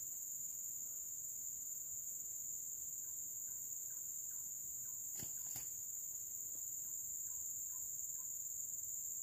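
Steady high-pitched drone of insects, with two short knocks about five seconds in.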